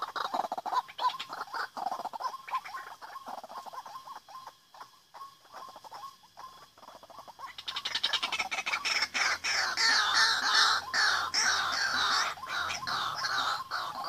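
White-breasted waterhens calling: quieter repeated notes at first, then a loud, harsh run of croaking calls from about halfway through.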